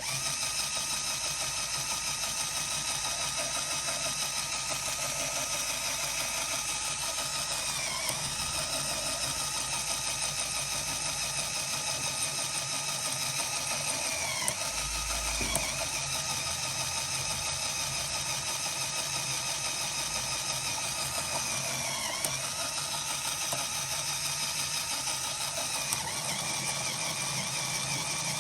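LEGO Technic electric motor driving a plastic gear train, a steady whine with gear noise. The pitch dips briefly and recovers three times, about a third, halfway and three quarters of the way through.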